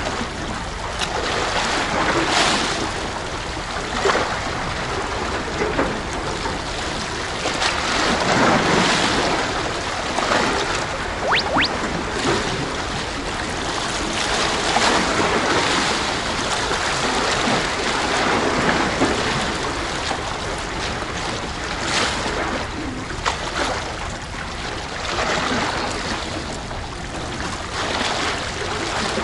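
Sea waves washing and surging around a concrete tetrapod breakwater, swelling and easing every few seconds, with wind rumbling on the microphone.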